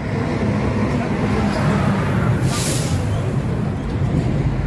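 Steady low rumble of a motor vehicle running close by, with road traffic noise and a brief hiss about two and a half seconds in.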